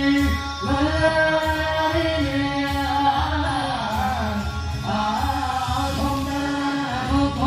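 Live music over a PA: a man singing held, gliding notes into a microphone over a steady low bass beat.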